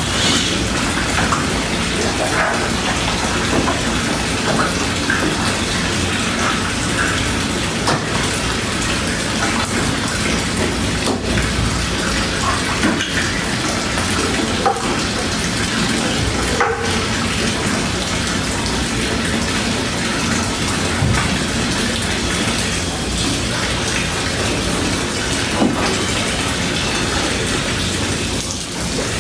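A thin stream of water pouring steadily into a plastic stock tub full of water, with splashing from Asian small-clawed otters swimming and playing in it.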